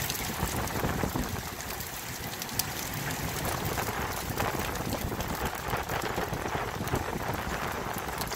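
Heavy rain from a hail storm falling on wet concrete, a dense steady patter with scattered sharp ticks from hailstones. One louder tick comes about two and a half seconds in.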